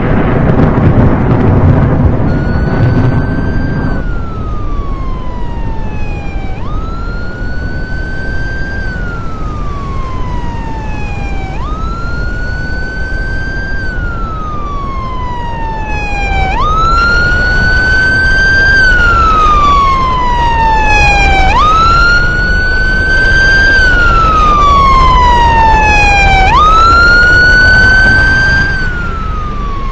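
Emergency vehicle siren on a wail setting: the tone climbs quickly, holds, then slides slowly down, repeating about every five seconds and growing louder about halfway through. A loud low rumble fills the first few seconds, under a steady low noise.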